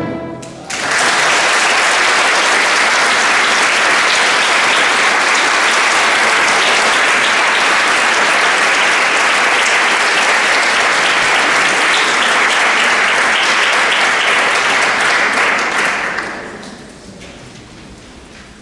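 Concert audience applauding: the clapping starts abruptly within the first second, holds steady, and dies away a couple of seconds before the end.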